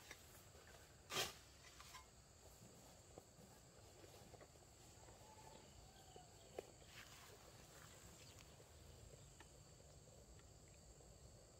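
Near silence: faint outdoor background with a single knock about a second in and a few faint clicks.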